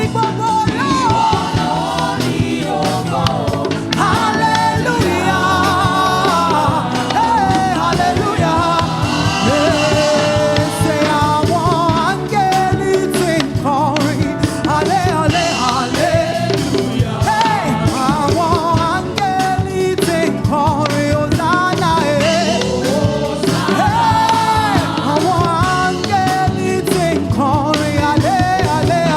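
Live gospel praise and worship music: a lead singer with backing voices over a full band with a steady drum beat.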